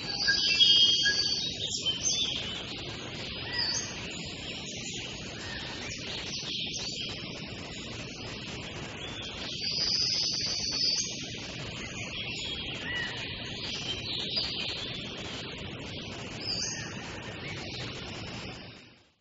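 Several birds chirping and calling over a steady background hiss, busiest near the start and again about ten seconds in.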